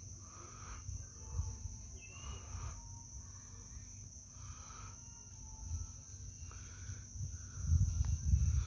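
Steady high-pitched insect drone in the outdoor background, with a low rumble on the phone's microphone that swells near the end and a few faint short calls.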